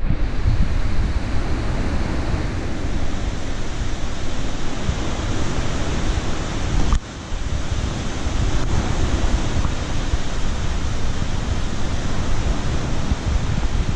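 Strong storm wind rushing and buffeting the microphone, a steady loud roar heaviest in the low rumble, which drops out briefly about seven seconds in.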